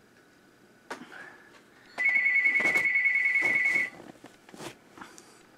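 A loud, high electronic trilling ring lasting about two seconds, starting about two seconds in and cutting off sharply. Around it come a few short knocks and rustles of the plastic model locomotive being handled.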